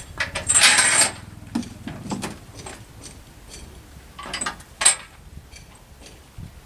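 Metallic clanks and knocks from heavy machinery over a low, steady engine rumble, with a loud short hiss about half a second in and a sharp knock near the end.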